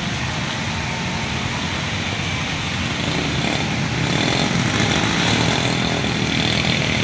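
Motorcycle engine running steadily, getting a little louder from about three and a half seconds in.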